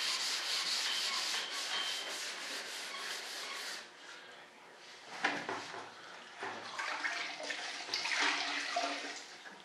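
Hand sanding of primer on a fiberglass model-jet wing: rapid back-and-forth strokes of sandpaper rasping over the guide coat, which stop about four seconds in and give way to a few shorter, quieter rubs. This is guide-coat sanding, done to show up the low spots and waves in the primer before painting.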